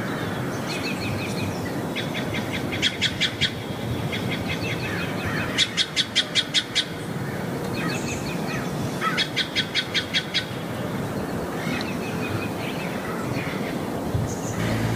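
Birds calling over steady background noise. One bird three times gives a run of quick, evenly spaced, clipped notes lasting about a second, and shorter chirps come in between.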